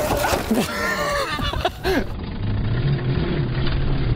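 Sur-Ron Light Bee electric dirt bike ridden hard around a dirt berm: its electric motor whines, the pitch rising and falling with the throttle, over the noise of the tyres tearing through loose dirt. About two seconds in the whine gives way to a lower, steadier hum.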